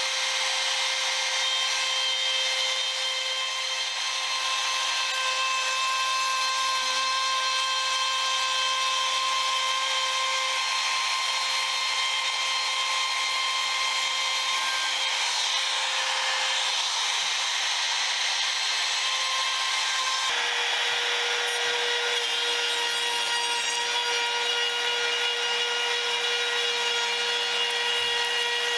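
Handheld trim router running at full speed and cutting into wood: a steady high motor whine over the rough hiss of the bit chewing through the boards. About twenty seconds in, the whine drops slightly in pitch.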